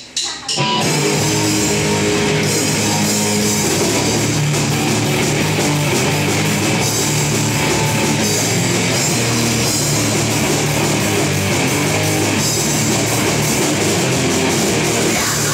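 Live thrash metal band: distorted electric guitars, bass and drum kit come in together under a second in after a few sharp hits, then play on loud and steady.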